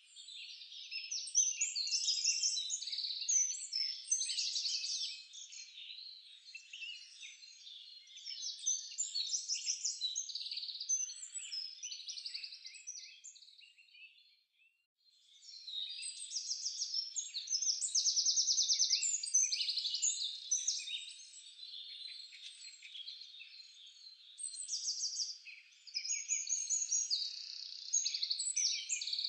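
Songbirds singing in rapid, overlapping chirps and trills, with a brief break about halfway through.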